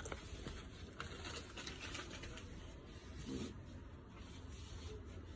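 Faint room noise with a few light clicks and rustles in the first couple of seconds, and a brief faint sound a little past three seconds in.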